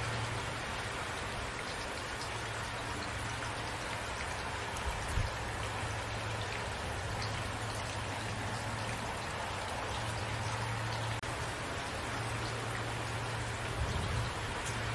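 Steady rain falling, an even hiss with individual drops ticking through it and a steady low hum underneath. The sound drops out for an instant about eleven seconds in.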